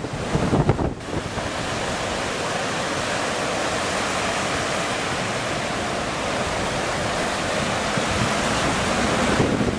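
Steady rushing hiss of water as vehicles plough through a flooded street, throwing up spray. Wind buffets the microphone for about the first second.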